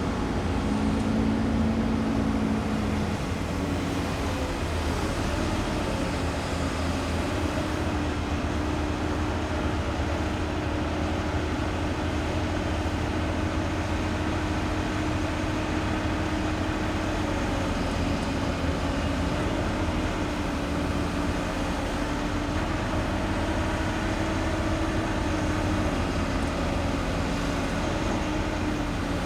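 Diesel excavator working: a steady engine drone with a hydraulic tone that shifts slightly in pitch.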